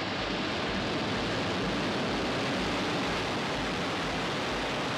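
Falcon 9 first stage's nine Merlin engines firing at liftoff as the rocket climbs off the pad: a steady, even rush of noise.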